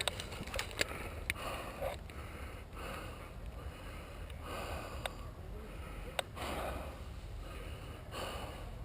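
A person breathing close to the microphone, a soft breath every second and a half or two, with a few sharp clicks in between.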